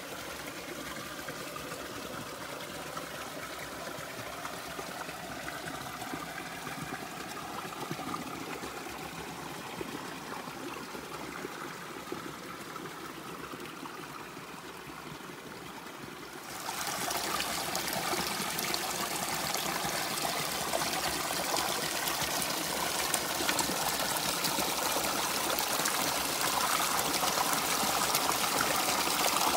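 Flowing river water trickling and rushing steadily. About sixteen seconds in, it switches abruptly to a louder, brighter rush of water.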